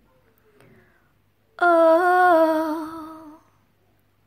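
A woman's voice, unaccompanied, sings one long wordless note about a second and a half in. The note wavers slightly in pitch and fades out after about two seconds.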